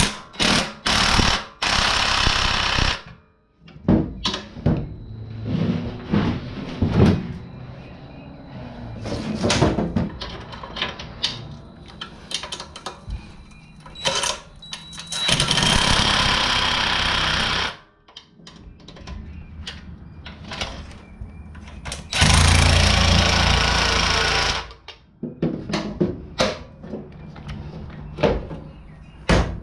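Impact wrench hammering in three bursts of about two seconds each, running down and tightening the engine mount nuts and bolts that set the roller chain's tension, with sharp clinks of socket and metal between the bursts.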